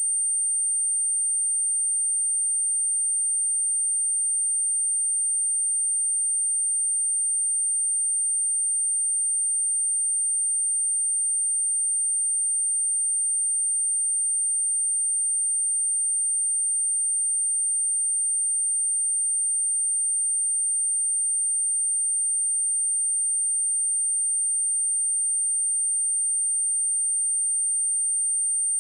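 A steady, high-pitched 8824 Hz sine-wave test tone: one pure tone held without change, used to test speakers and to clear water and dust from them.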